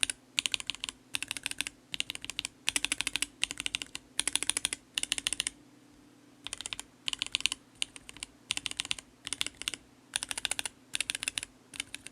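Typing on a Kbd67 Lite mechanical keyboard with a polycarbonate plate, PBT keycaps and Akko CS switches, in quick bursts of keystrokes with short pauses between them and a longer pause about six seconds in.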